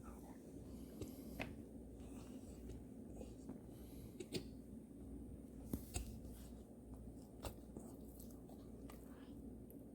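A golden retriever hiccuping: several short, sharp hiccups at irregular intervals a second or more apart.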